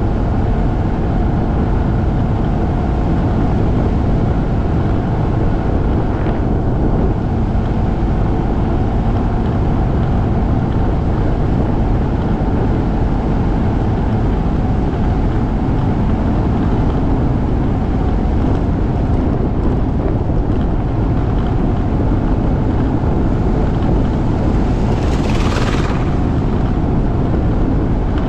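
Motorcycle cruising at steady speed: wind rushing over a bike-mounted camera's microphone, with the engine running steadily underneath. A brief hiss rises and fades near the end.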